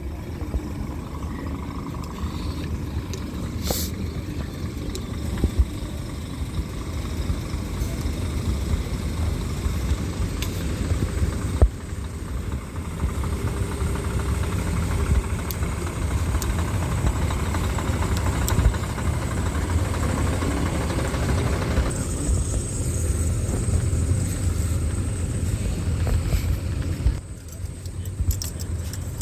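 Race vehicle engines running at the circuit, a continuous low rumble. It grows brighter about two-thirds of the way through, then drops off suddenly near the end.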